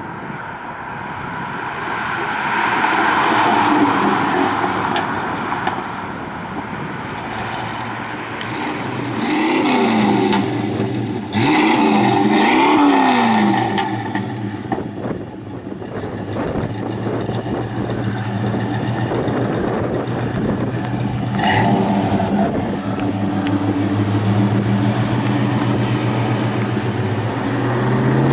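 1955 Chevrolet Bel Air's fuel-injected engine: the car drives past, then the engine is revved up and back down twice, then it idles steadily through its exhaust.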